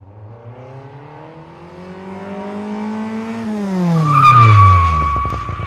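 A car engine revving up steadily for about three seconds, then dropping in pitch as the tyres screech. The screech is loudest about four seconds in.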